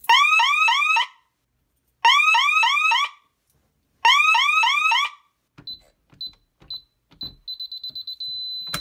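Fire alarm sounder of a DSC PC1515 security panel, set off by a pulled Simplex 4251-20 pull station. It sounds three loud bursts about a second long and a second apart, each a run of quick rising chirps, then stops. After that the keypad beeps several times as keys are pressed, ending in a steady high beep tone.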